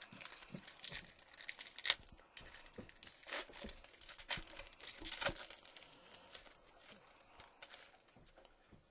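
Foil wrapper of a Topps Chrome football card pack being torn open and crinkled by hand: a run of sharp crackles that thins out after about six seconds.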